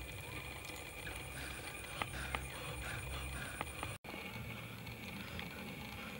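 Shell of a cooked egg being cracked and peeled by hand: a few sharp clicks about two to three and a half seconds in, over a steady outdoor background with a short run of repeated calls in the middle. The sound cuts out for an instant about four seconds in.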